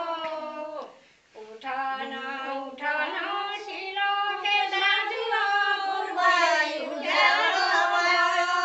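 A group of women singing a song together in unison, with no instruments, with a short break for breath about a second in.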